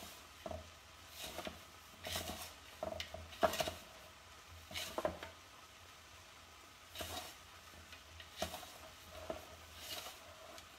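Fingertips rubbing butter into flour and sugar in a glass mixing bowl to make crumble topping: soft, irregular rustles and light scrapes against the glass, roughly one a second, the loudest about three and a half seconds in.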